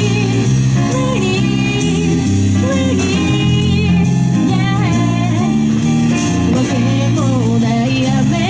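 Live band music: a female voice singing over electric guitar, bass guitar and drums.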